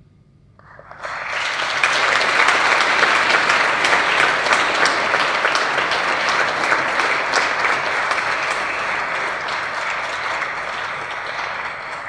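Room full of guests applauding at the close of a speech: a brief hush, then clapping swells in within the first second or two and keeps going, easing slightly toward the end.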